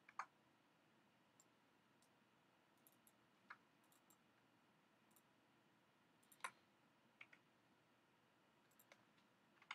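A few scattered, sharp computer mouse clicks, a second or more apart, over near silence.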